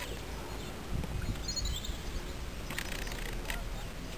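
Open-air ambience: a low steady rumble with a few short, high bird chirps.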